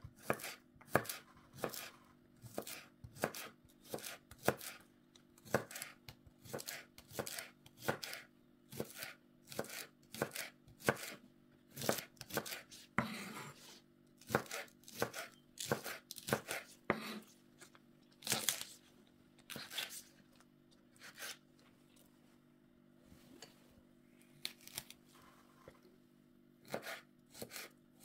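Knife chopping food on a cutting board in a steady rhythm of about two strokes a second, easing off to a few lighter strokes for a few seconds before picking up again near the end, over a steady low hum.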